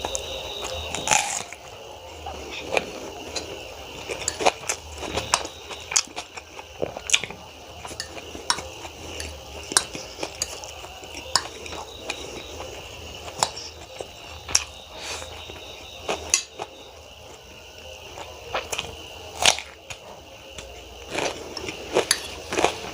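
Close-miked eating of chow mein: irregular sharp clinks of cutlery against a plate, mixed with chewing and biting sounds.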